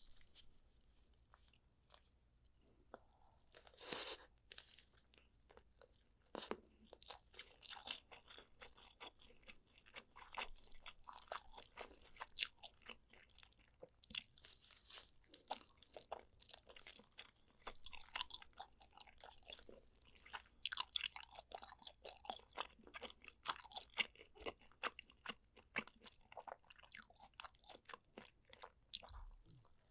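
Chewing and biting into spicy soy-braised pork ribs, a dense run of short crunches and clicks.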